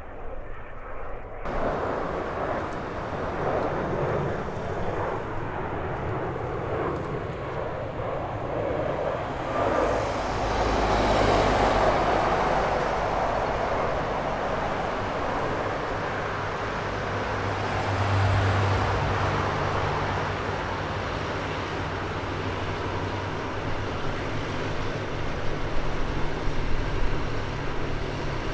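Jet engines of a Boeing 767-300 freighter flying in to land: steady jet engine noise with a low hum underneath, swelling about ten seconds in and again a little later.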